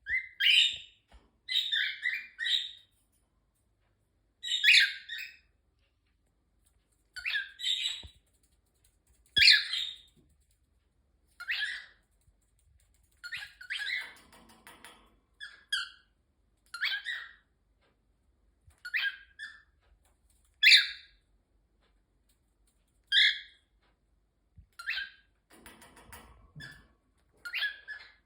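Cockatiel giving short, high chirping calls over and over, about one every two seconds, with a couple of longer, scratchier sounds among them.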